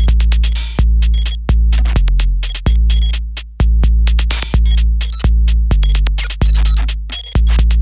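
Electronic noise music: a heavy, deep bass kick hits about every three-quarters of a second, each one dying away, under dense crackling clicks, hiss and short high bleeps.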